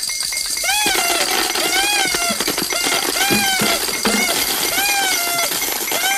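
Sound effect of a fanciful wish machine at work: a steady, loud rattling clatter with a warbling tone that swoops up and down about once a second.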